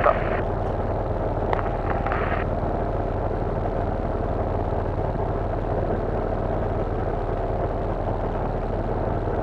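Cessna 172 floatplane's piston engine and propeller droning steadily in flight, heard inside the cabin.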